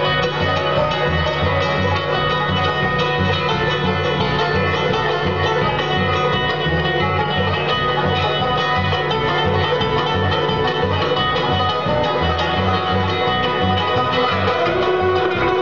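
Bluegrass band playing an instrumental live, with banjo and guitar over a steady, regular bass beat.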